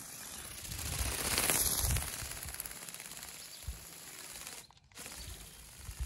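Go Go Bird RC ornithopter's motor and gearbox driving its flapping wings in flight: a rapid, even mechanical clatter, loudest about a second in.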